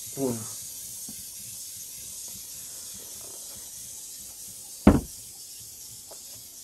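Faint steady hiss with a few small handling ticks, and one short, sharp thump nearly five seconds in.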